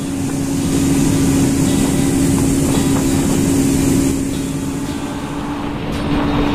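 Motorboat running at speed on a river: a steady engine tone under the rush and hiss of water spraying off the hull.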